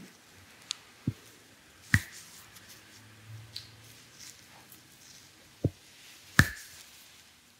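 Massage therapist's hands working on a client's body, with about five sharp clicks or pops scattered through, the loudest about six and a half seconds in.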